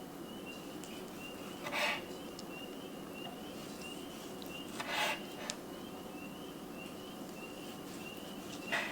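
Knife slicing through a grilled chicken breast on a cutting board: three short cutting strokes a few seconds apart. Behind them, a high chirp repeats steadily about two to three times a second.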